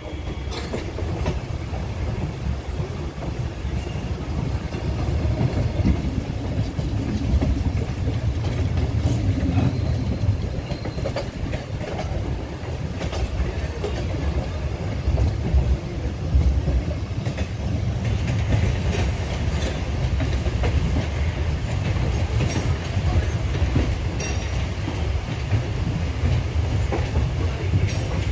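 Train running on the rails, heard from inside the carriage: a steady low rumble of wheels on track, with a few sharp clicks of the wheels over rail joints.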